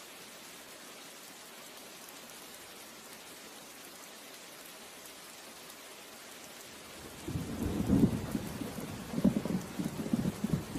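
Steady hiss of rain; about seven seconds in, a low rumble of thunder sets in and rolls on in surges, loudest soon after it begins.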